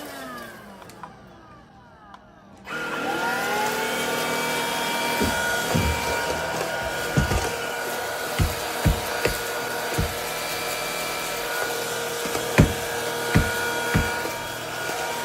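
Cordless stick vacuum's motor winding down to near quiet, then switched on again almost three seconds in and whining up to speed. It then runs steadily, with a dozen or so sharp knocks over the next nine seconds.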